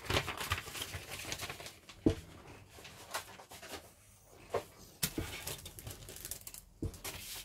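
Sheets of paper rustling and crinkling as a kit's instruction sheets and pull-out pages are handled, with scattered clicks and a few sharper knocks, the loudest about two seconds in.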